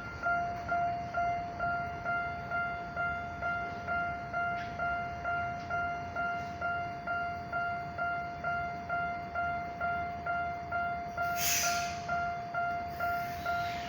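Japanese level-crossing warning bell ringing: a repeated electronic clang on one steady pitch, a little over two strikes a second. A brief hiss breaks in about eleven seconds in.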